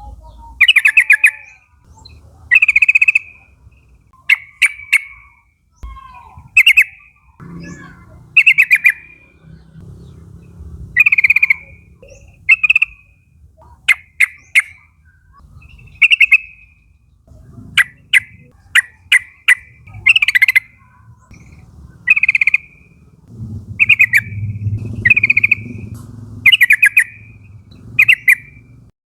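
Yellow-vented bulbul calls: short, loud, bubbly phrases repeated every one to two seconds, some broken into quick runs of clicking notes.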